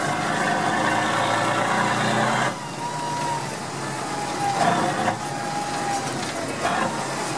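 Tatra 813 truck's air-cooled V12 diesel running as it drives, with a whine near 1 kHz that slides down and levels off several times. The engine note drops back about two and a half seconds in and picks up again later.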